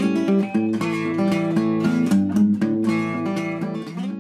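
Intro music of strummed acoustic guitar chords in a steady rhythm.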